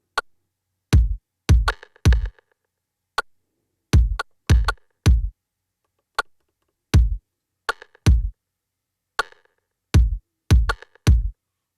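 Programmed drum loop played back from Maschine: deep kick drum hits in quick groups of three, some with a clap stacked on top, and a sharp tick at the start of each bar. The pattern repeats about every three seconds.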